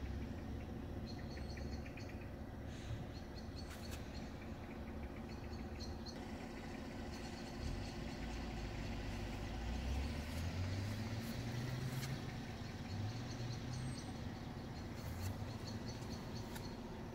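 Outdoor background: a steady low rumble with short series of quick, high bird chirps, mostly in the first few seconds, and a few faint clicks.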